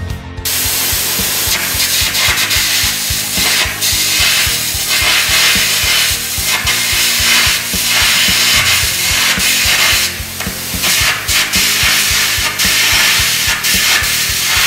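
Carbon arc air gouging at 600 A: a loud, continuous crackling hiss of the carbon electrode's arc and the compressed-air jet blowing the molten steel out of the groove, starting about half a second in.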